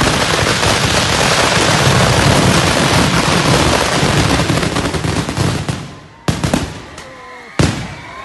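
A large fireworks display going off at close range: a dense, rapid crackling of countless small explosions, like machine-gun fire. It thins out and stops about six seconds in, followed by two single sharp bangs.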